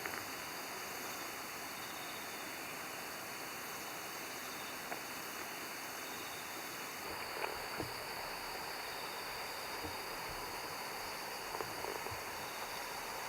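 Steady chorus of crickets and other insects, a continuous high chirring, with a few faint knocks around the middle.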